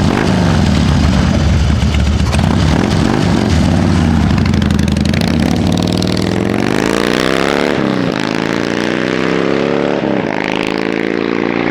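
Harley-Davidson Dyna's carbureted V-twin running loud through an S&S Grand National two-pipe exhaust, just after being started. It runs steadily, then about six seconds in the engine speed climbs twice, dropping back sharply after each climb, and settles into a steady, slightly faster run.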